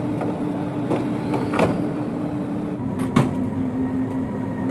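A running engine's steady hum with a held tone, and sharp metallic knocks about one and a half and three seconds in from tools at the truck's starter.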